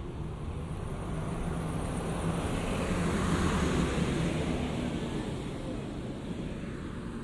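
A motor vehicle passing on a city street, its engine and tyre noise swelling to a peak about halfway through and then fading.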